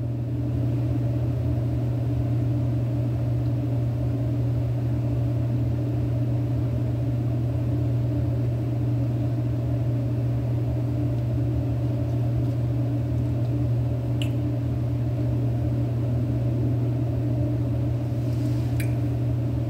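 Steady low mechanical hum with no change in level, like a room's ventilation running. There is a faint click about two-thirds of the way through and another near the end.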